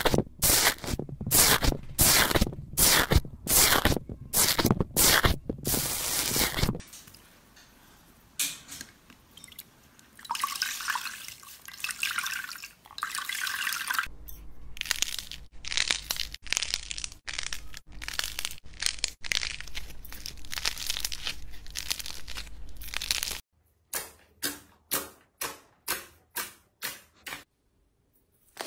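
Slime being pressed and squeezed by hand. Foam slime is pressed with a metal tool in loud crackling strokes about twice a second. After a quieter stretch, clear slime is squeezed in a fist with dense wet clicking, and near the end comes a series of about eight separate squishes.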